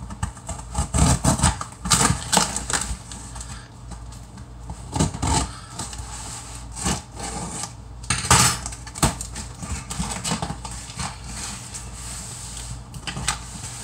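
A blade slicing through packing tape on a cardboard shipping box, then the cardboard flaps pulled open and handled: a run of irregular scrapes, rips and knocks, the loudest about eight seconds in.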